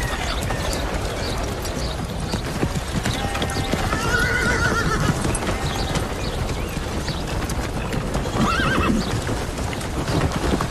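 Many horses' hooves clip-clopping over ground as a mounted column walks along. A horse whinnies about four seconds in and again around eight and a half seconds.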